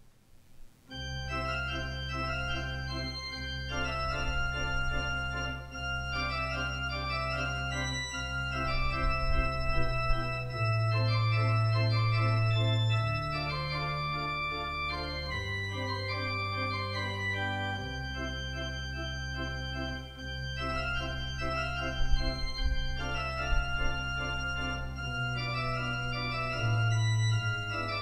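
Pipe organ playing sustained chords over deep held pedal notes. It starts about a second in.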